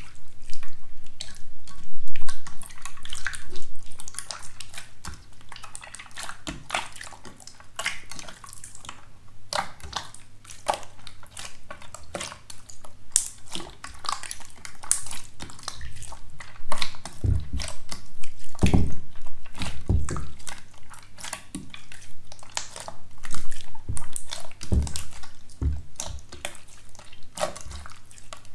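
Wet slime squished and pressed by hand: dense, irregular wet clicks, crackles and drips, with a few louder, duller squelches past the middle.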